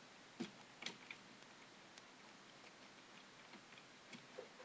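Computer keyboard typing: a handful of faint, scattered keystroke clicks, a few close together about a second in and a couple more near the end, over near silence.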